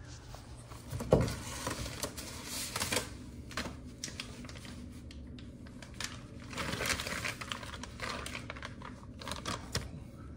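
Clear plastic bag crinkling and rustling as a camshaft is pulled out of it, in uneven bursts with sharp crackles, the loudest about a second in.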